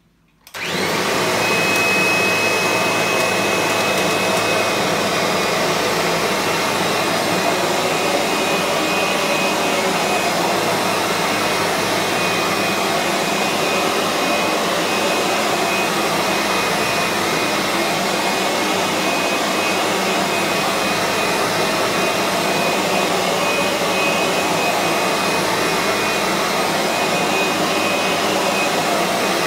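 Kirby G3 upright vacuum cleaner switched on about half a second in, then running steadily with a high whine as its buffing brush polishes freshly waxed laminate flooring.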